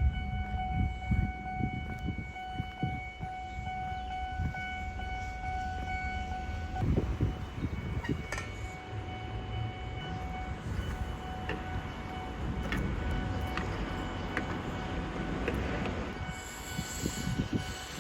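Electric train running. A steady pitched whine holds for about the first seven seconds and then drops away into a rushing rumble with scattered knocks and clicks.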